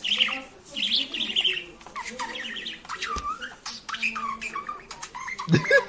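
Songbirds chirping and twittering in quick, repeated short calls: a birdsong sound effect.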